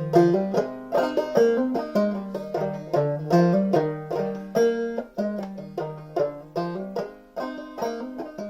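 Solo banjo played clawhammer style: a steady, rhythmic stream of brushed and picked notes, each struck sharply and ringing briefly.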